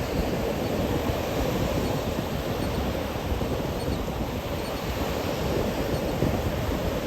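Ocean surf washing up and back on a sandy beach, a steady rushing noise, with some wind on the microphone.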